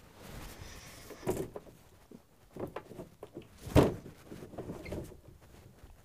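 Faint rustling and small knocks as a person gets up off a bed and moves about, with one louder thump near the four-second mark.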